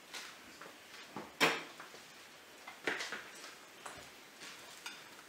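A knife cutting a toasted sandwich on a plate: a few sharp clinks and scrapes of the blade against the plate, the loudest about a second and a half in and another about three seconds in.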